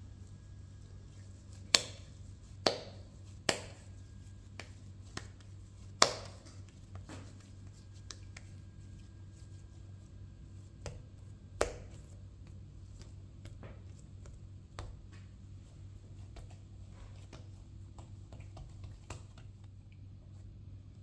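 Hands shaping bread dough on a marble countertop: several sharp knocks and taps against the stone, the loudest in the first half dozen seconds and one more near the middle, with fainter taps and soft handling between, over a low steady hum.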